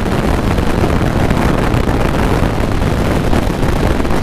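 Wind buffeting the microphone of a motorcycle riding at road speed: a steady, loud rush with the bike's running noise under it.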